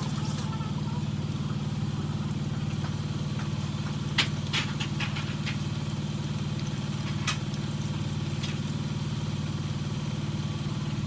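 A steady low mechanical hum, with a few short clicks about four seconds in and again near seven seconds.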